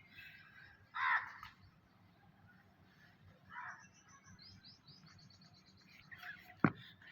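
Birds chirping, with a louder harsh call about a second in and a quick run of short, high chirps in the second half. A single sharp click comes near the end.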